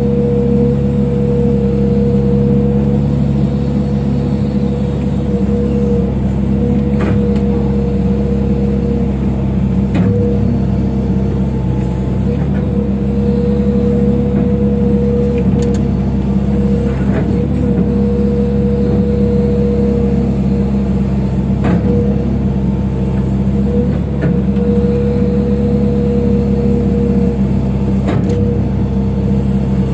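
Excavator's diesel engine running at a steady speed, with a few faint knocks now and then.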